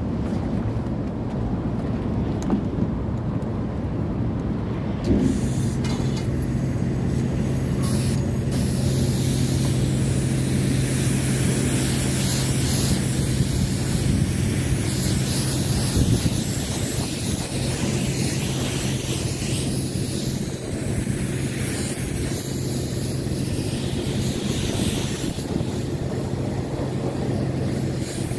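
Self-service car wash high-pressure wand spraying water onto a minivan's body, a dense steady hiss. A steady low hum joins about five seconds in.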